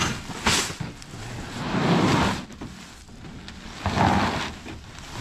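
Heavy filled woven sacks dragged and slid across a pickup truck's bed, making scraping, rustling noise in three pushes, the first with a sharp knock.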